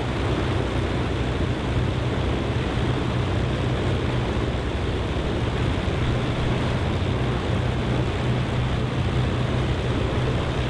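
Avro Lancaster's Rolls-Royce Merlin V12 engines running steadily at idle with the aircraft stopped: a constant low drone under a dense wash of propeller noise.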